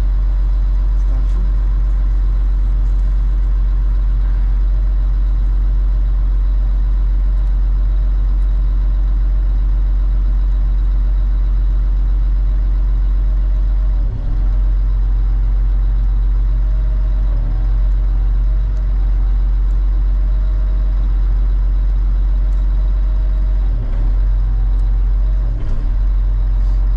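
A heavy engine running at a steady idle: a loud low drone that dips briefly a few times in the second half.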